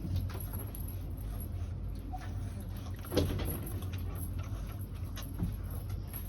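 A dog gnawing and tugging at a bone hung from a ceiling hook: scattered short clicks and knocks of teeth on bone, with one louder knock about three seconds in, over a steady low hum.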